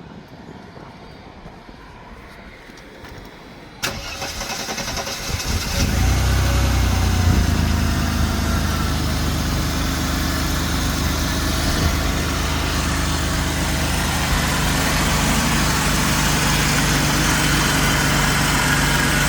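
1991 Mercedes-Benz 180E's four-cylinder petrol engine cranking about four seconds in, catching, and settling into a steady idle, running with its damaged fuel pressure regulator vacuum line bypassed.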